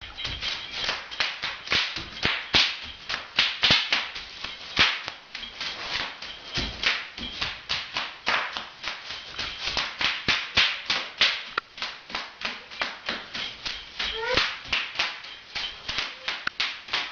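Bubble wrap popping: a rapid, irregular run of sharp pops, several a second.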